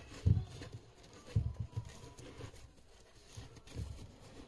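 Handling noise from a white leather high-top sneaker being gripped and turned by hand: a few dull low knocks, the loudest in the first two seconds, with faint rubbing and rustling between them.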